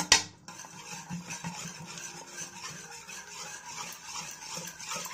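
Wire whisk beating soft, cooked moong dal in a metal pot, a steady churning, with a couple of sharp clinks of the whisk against the pot right at the start.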